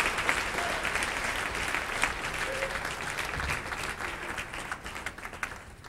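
A congregation applauding, a dense patter of many hands clapping that fades away toward the end.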